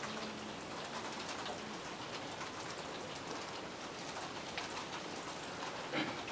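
Several computer keyboards being typed on at once: a dense, continuous patter of key clicks.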